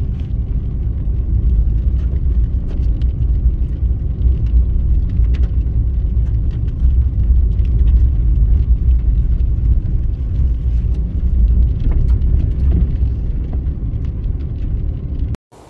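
Car driving, heard from inside the cabin: a steady low rumble of engine and tyres with faint scattered ticks, cutting off suddenly just before the end.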